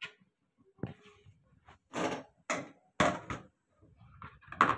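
Steel spoon scraping and knocking against a steel plate and steel kadai as mashed boiled potatoes are pushed into the pan and stirred: a handful of separate scrapes and clinks, the loudest near the end.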